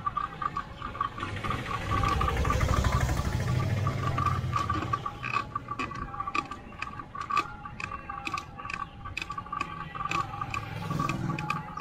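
A three-wheeled auto-rickshaw's engine approaches and passes, loudest around two to four seconds in, and a motorcycle's engine comes closer near the end. Beneath them runs a steady, rapidly pulsing chirp of insects with scattered sharp ticks.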